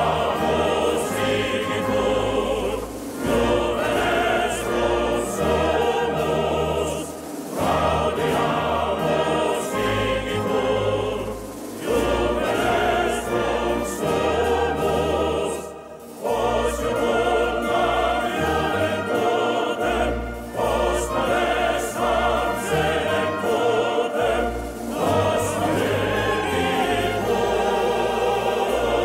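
A choir singing, in phrases of about four seconds with short breaks between them.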